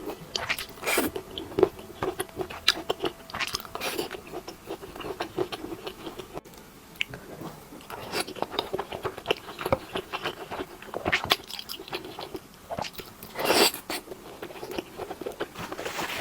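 A person chewing and biting food: irregular short wet clicks and crunches, with one louder, longer burst near the end.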